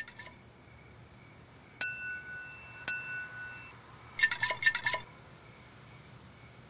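Two sharp clinks about a second apart, each leaving a clear ringing tone, then a quick rattle of several clinks a little over a second later.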